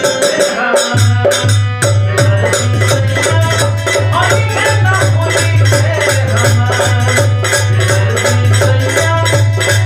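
Bhojpuri Holi folk music with a steady pulsing drum beat under melodic instrumental lines.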